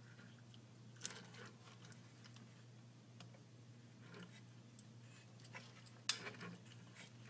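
Faint handling clicks and rustles of a small end-stop switch and its wires being worked into a laser-cut wooden part, with sharper clicks about a second in and near the end, over a low steady hum.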